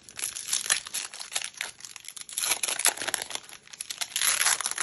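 Foil Pokémon booster pack wrappers crinkling and tearing as two packs are ripped open by hand, with a denser stretch of crackling near the end.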